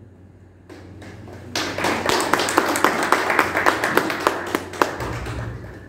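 A small audience clapping, starting about a second and a half in and dying away near the end.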